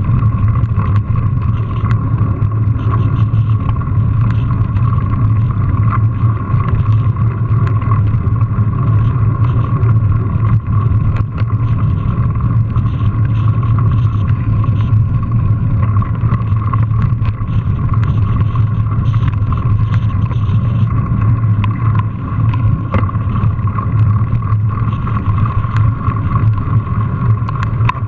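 Steady riding noise picked up by a bike-mounted GoPro as a mountain bike rolls along a paved path: a constant low rumble of wind and tyres, with scattered small rattles and clicks from the bike over the paving.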